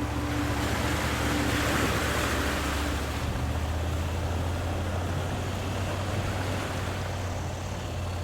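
Steady rushing noise over a low steady hum, with faint music fading out about three seconds in.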